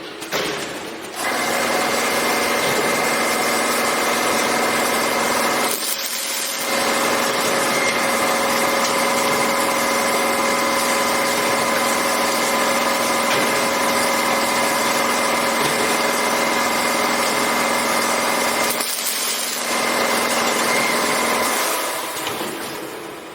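Automatic rebar cage welding machine running: a steady machine hum with a bright hiss, which stops briefly twice and fades away near the end.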